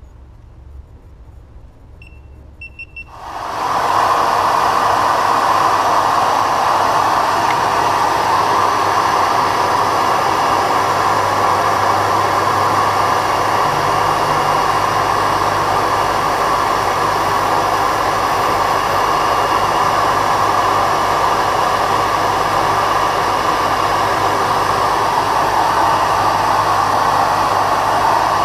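A few short electronic beeps, then a vacuum cleaner switches on about three seconds in and runs with a loud, steady rush as dust extraction at a bench grinder.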